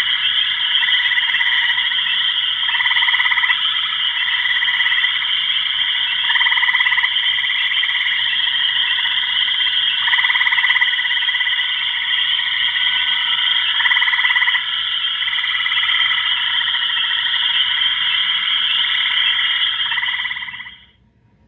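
A dense, steady chorus of high trilling animal calls, swelling and easing every couple of seconds, that fades out and stops near the end.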